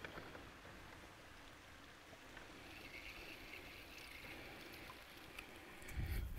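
Faint open-water ambience of a lake from a boat, with water lapping softly, a light hiss for a couple of seconds in the middle, and a low bump near the end.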